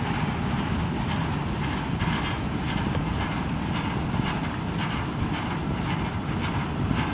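Flatcars of a slow-moving Union Pacific work train rolling past: a steady low rumble of steel wheels on rail with light, irregular clicks.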